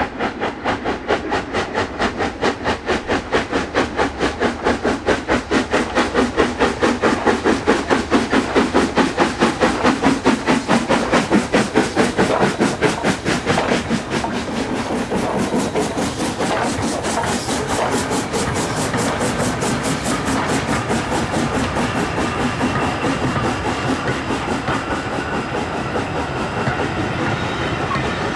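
LMS Royal Scot class three-cylinder 4-6-0 steam locomotive 46100 under steam, its chimney exhaust beating rapidly and evenly and growing louder as it approaches and passes about halfway through. After that the coaches roll by, wheels clattering steadily on the track.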